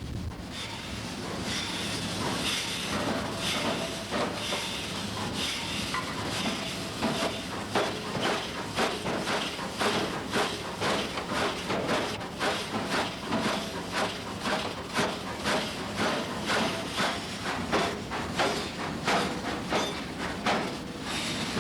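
Hammer blows on metal at an anvil, a steady rhythm of strikes a little over one a second beginning about a quarter of the way in, over a continuous hiss and low hum.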